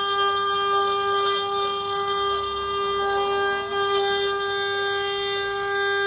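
CNC machine spindle running with a steady high-pitched whine.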